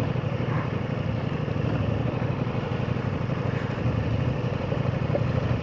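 Ducati motorcycle engine running steadily, with an even pulsing that holds throughout.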